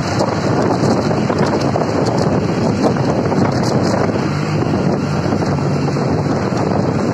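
Wind rushing over the microphone of a moving vehicle, mixed with steady road and engine noise while driving behind a truck; a low engine hum shows more plainly for a couple of seconds past the middle.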